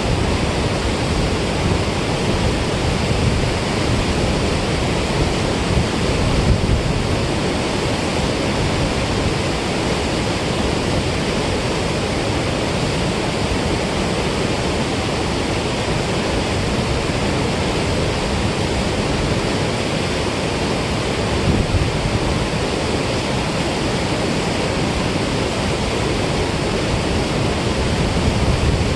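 Water rushing steadily from a dam spillway outlet: a loud, even wash of churning water with no breaks.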